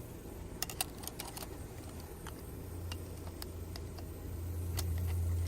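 Scattered light clicks and taps as the adjustable parts of an RV sewer hose connector bracket are handled and set to length, over a low steady rumble that grows louder in the second half.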